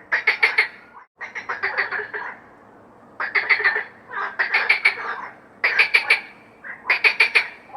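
A chorus of frogs croaking in quack-like calls, each call a quick run of several pulses, repeated in clusters with short pauses between.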